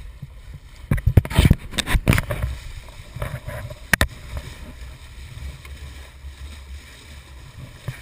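Wind buffeting a camera microphone on a small sailboat under way: a steady low rumble, with a cluster of loud knocks and bumps between about one and two seconds in and a single sharp click about four seconds in.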